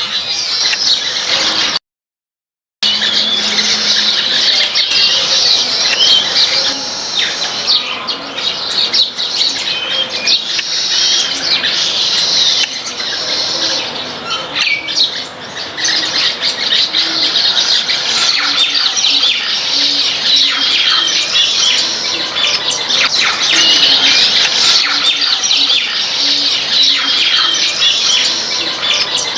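Dense chatter of a flock of small birds, many quick chirps and squeaky calls overlapping without a break. The sound cuts out for about a second near the start.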